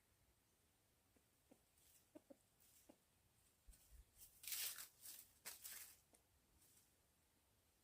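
Near silence broken by a few faint clicks, then a short run of soft rustling or scraping noises in the second half.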